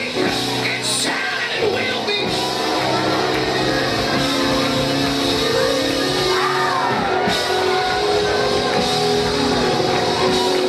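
Live church band playing held chords with guitar, and cymbal crashes about two and seven seconds in, with a man's raised voice singing and shouting over it through the PA.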